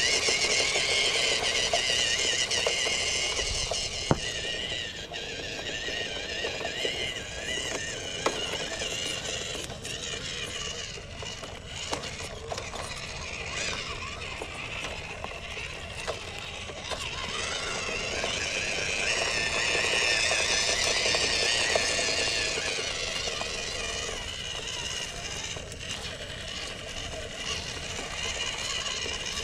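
Small RC truck's electric motor and gear train whining and rattling as it drives. The whine swells and fades over several seconds with the throttle, with a few sharp knocks.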